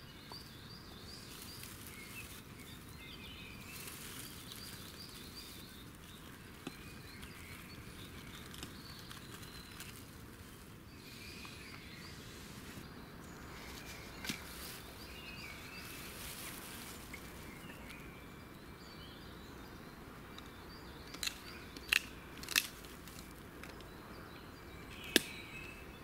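Slow repeated breaths blown into a smouldering bow-drill ember in a dry tinder bundle to coax it into flame, with small birds chirping in the background. A few sharp cracks come near the end.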